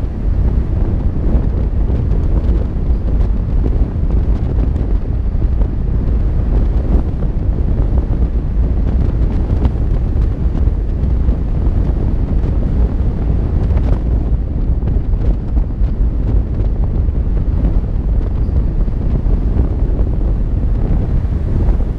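Wind buffeting the microphone of a camera mounted on the hood of a moving car: a steady, loud, low rumble that covers the car's own road noise.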